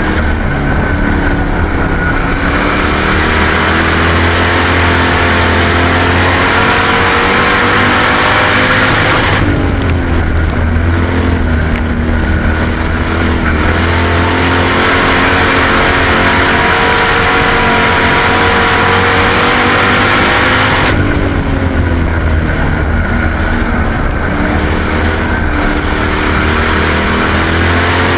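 Race car engine heard from inside the car at full racing speed. Its pitch climbs steadily along each straight and drops off sharply twice, as the throttle is lifted for the turns, then climbs again.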